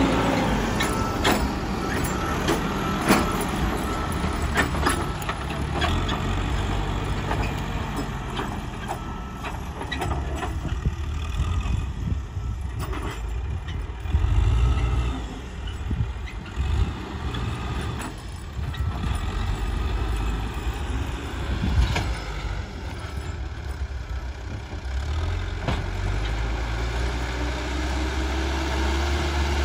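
Cat 434E backhoe loader's diesel engine running under load, rising and falling as the front bucket pushes and levels soil, with occasional sharp knocks from the bucket and loader.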